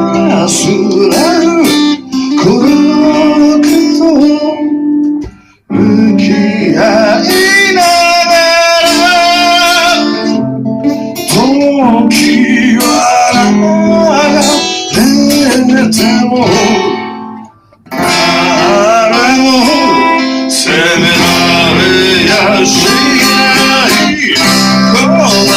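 Song played on guitar with singing, loud and steady, with two brief breaks, about five seconds in and again about two-thirds of the way through.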